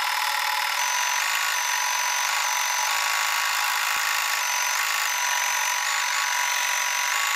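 Home embroidery machine stitching, a steady mechanical whir with a high whine that switches back and forth between two pitches.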